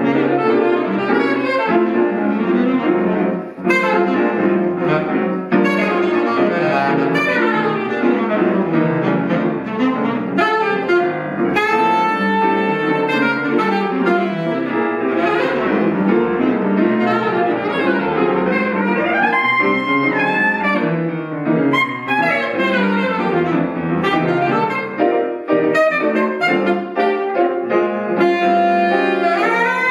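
Jazz saxophone and piano duo: the saxophone plays quick melodic runs over piano chords.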